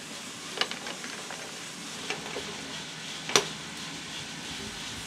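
Probat drum coffee roaster running, a steady hiss of beans tumbling in the drum, with a few sharp clicks, the loudest a little past three seconds in.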